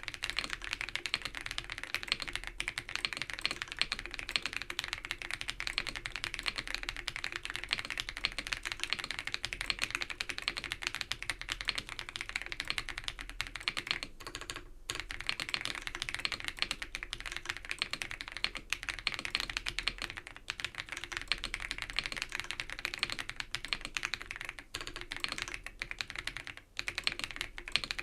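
Fast, continuous typing on an ABKO AK100 mechanical keyboard with Baby Blue switches, a non-clicky switch of about 45 g. The keystrokes pause briefly about halfway through.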